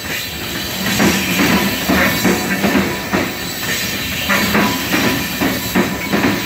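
Covered hopper cars of a freight train rolling past, their wheels clacking over rail joints in an uneven rhythm, with a thin steady wheel squeal underneath.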